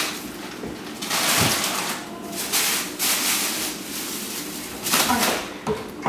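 A cloth rubbing over kitchen cabinet doors in several wiping strokes, each a rustling hiss lasting up to about a second, over a faint steady hum.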